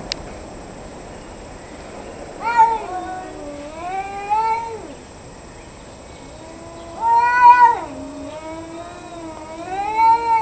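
A cat yowling in long, drawn-out, wavering calls, three of them, the middle one the loudest: a plaintive caterwaul of a cat facing off with another cat.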